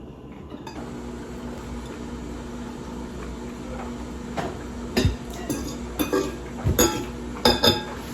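Dishes and cutlery clinking and knocking, a run of sharp clinks in the second half, over a steady low hum.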